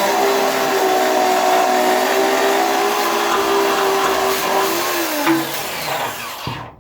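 Hand-held electric grinder running at a steady high whine over a hiss of abrasion on sheet steel. Near the end its pitch sags and it cuts off as it is switched off.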